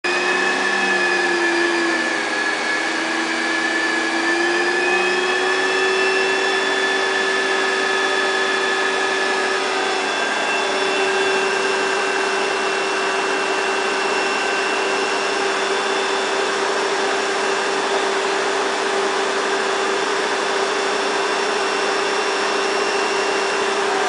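Canister vacuum cleaner running steadily, a continuous motor whine over airflow noise, its pitch dipping briefly a couple of seconds in before holding steady.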